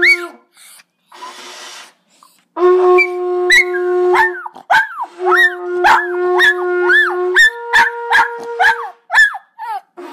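A hunting horn sounds long held notes, broken by short pauses, with a higher note near the end. A small dog howls and yelps along with it in many short cries that rise and fall in pitch, reacting to the horn.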